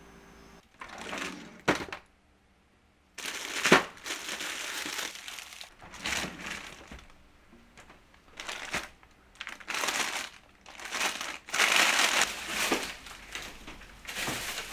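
Plastic crinkling and rustling in irregular bursts as things are handled, with a couple of sharp clicks or knocks in the first few seconds and a brief near-silent pause.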